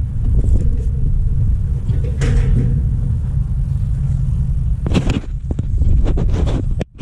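Low steady rumble of wind buffeting the microphone, with rustling and scraping of clothing and hands against a concrete-and-brick wall as a man climbs it; the scrapes come about two seconds in and again in a cluster after five seconds.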